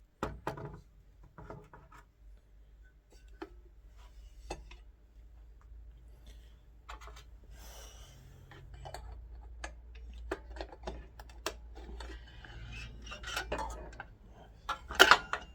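Screws, small metal parts and hand tools clinking and scraping during the disassembly of a chop saw's handle, with scattered sharp clicks and a louder clatter near the end.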